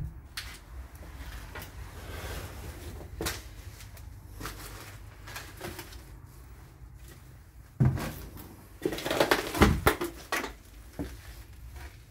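Scattered clicks, knocks and scrapes of someone moving through a derelict building over a debris-strewn floor, with a thump about eight seconds in and a louder cluster of bumps and scrapes a second later.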